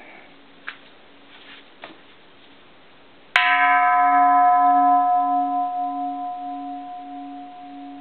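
An Edo-period bronze Japanese Buddhist temple bell is struck once, a little over three seconds in, and rings on with several clear tones. The higher overtones die away first, a strong middle tone holds, and a low hum wavers in a slow pulse. It is still ringing at the end.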